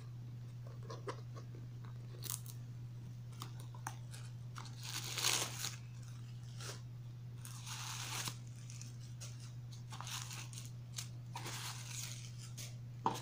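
Tissue paper rustling and crinkling as wrapped items are lifted out of a cardboard gift box, with small taps and scrapes of the box, the loudest rustles about five and eight seconds in. A steady low hum lies underneath.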